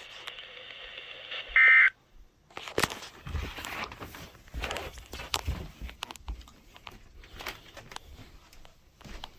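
NOAA Weather Radio receiver hissing faintly. About one and a half seconds in comes a short loud burst of two-tone digital data, the SAME end-of-message code that closes the alert. The radio then cuts off, and scattered clicks and rustling of handling follow.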